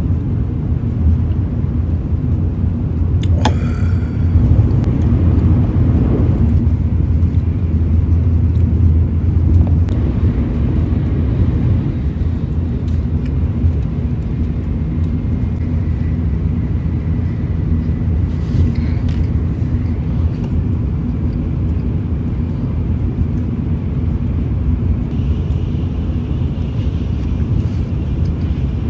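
Shinkansen bullet train running at speed, heard inside the passenger cabin as a steady low rumble. A couple of brief clicks stand out, the first about three and a half seconds in.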